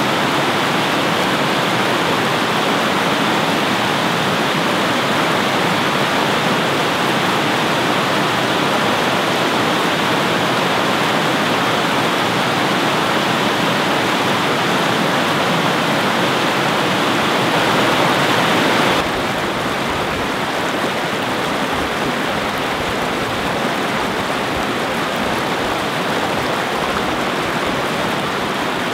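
A small river's white water rushing steadily over a rocky cascade. About two-thirds through it switches abruptly to another stretch of rapids, a little quieter and with more low rumble.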